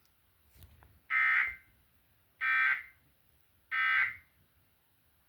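Emergency Alert System end-of-message (EOM) signal: three short digital SAME data bursts, each a harsh warbling screech under half a second long, about a second and a bit apart, marking the end of the monthly test.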